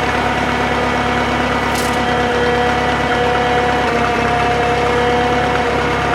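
Drott 85RM2 crane's engine running steadily while the crane lifts, with a steady whine over it that sags slightly in pitch near the end, and a few faint knocks.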